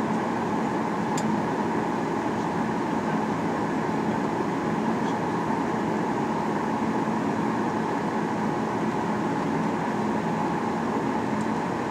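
Steady cabin noise of a Boeing 737-800 in flight: the CFM56 engines and the airflow making an even rush with a constant hum. There is a faint tick about a second in.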